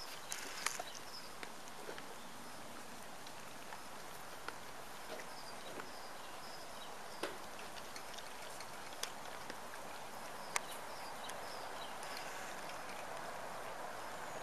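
A litter of Hovawart puppies eating from metal bowls: scattered sharp clicks and clinks of the bowls over their chewing and lapping.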